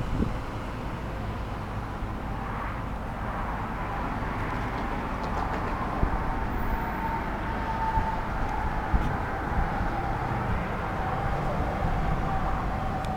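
Gasoline pump running and fuel flowing through the nozzle into a pickup's tank: a steady rush with a faint whine that settles slightly lower in pitch near the end. A few light knocks.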